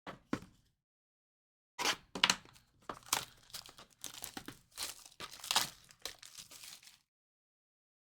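Plastic wrapping on a trading card box being torn and crinkled in quick, irregular crackles, after two short clicks right at the start.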